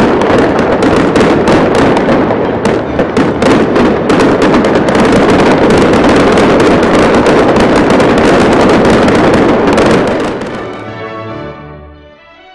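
A dense, rapid barrage of fireworks and firecrackers: continuous crackling with many sharp bangs, loud, for about ten seconds, then fading out. Orchestral music comes back in near the end.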